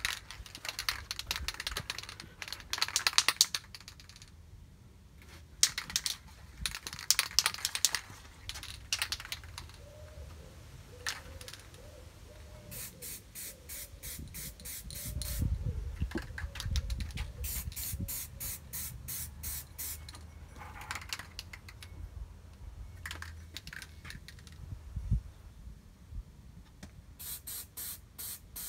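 Aerosol can of primer spraying in repeated short bursts of hiss, with pauses between. Some bursts break into quick, even pulses.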